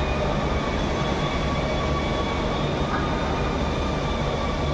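Steady machinery din of a large workshop hall: a low hum under a constant rushing noise, with faint steady whining tones above it.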